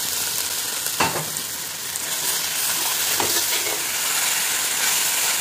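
Prawns, squid and shredded vegetables sizzling as they are stir-fried in a stainless steel pot. A few scrapes and knocks of stirring against the pot break through the hiss, the sharpest about a second in.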